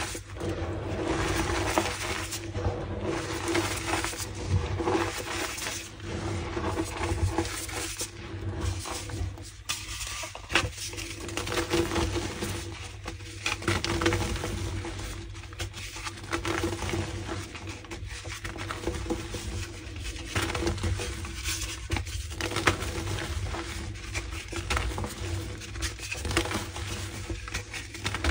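Pink gym chalk being crushed: a dense, continuous crunching and crackling with many sharp clicks, over a steady low hum.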